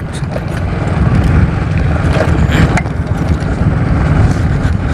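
Motorcycle engine running while riding over a rough dirt track, a continuous low rumble mixed with road and wind noise, getting louder about a second in.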